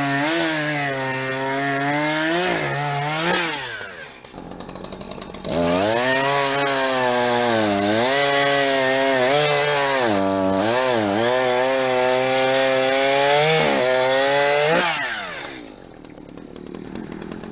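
Chainsaw bucking a log, running at full throttle with its pitch dipping as the chain bites into the wood. It drops to idle about four seconds in, revs back up to cut again for about nine seconds, then eases back to idle near the end.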